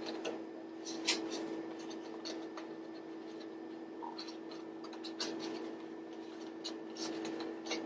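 Paper being handled: scattered light crinkles and taps as paper eyes are pressed onto a folded construction-paper frog body, over a steady low hum.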